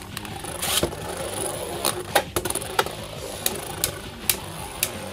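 Two Beyblade Burst tops, a plastic 3D-printed custom bey and a Judgment Joker, spinning in a stadium with a steady whir. About ten sharp clacks ring out at irregular intervals as they hit.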